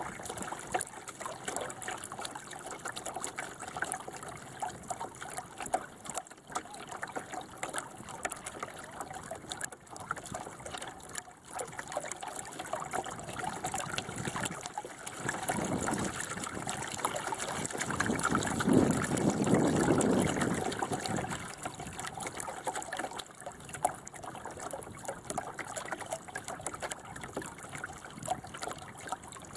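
Water trickling and splashing against a small sailing dinghy's hull as it moves, swelling to a louder rush for a few seconds around the middle.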